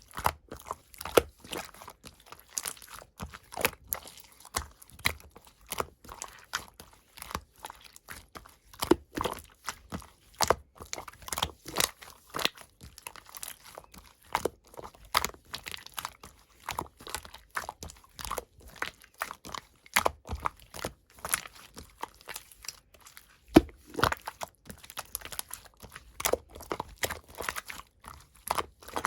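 Pink slime being squeezed, stretched and pressed by hand, making a dense, irregular run of crackling pops and clicks.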